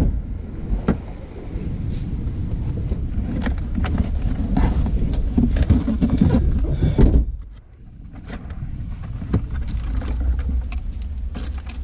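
Rustling, scraping handling noise as a wire is pushed through a grommet in a car, with scattered clicks over a low rumble. The rumble cuts out briefly about seven and a half seconds in.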